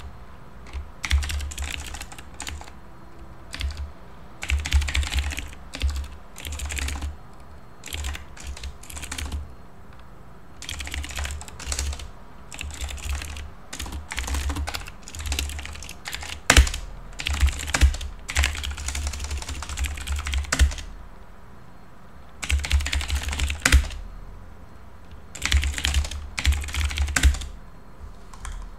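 Typing on a computer keyboard in quick bursts of key clicks with short pauses between, and a single sharper keystroke about halfway through.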